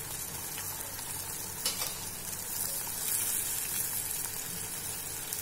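Ground masala paste with a little water sizzling steadily in a clay pot as a wooden spatula stirs it, with a light knock about one and a half seconds in.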